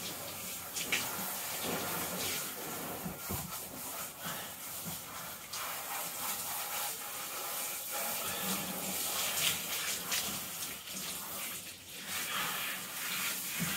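Handheld shower sprayer running steadily, water hissing onto a dog's thick wet coat and splashing into the bathtub.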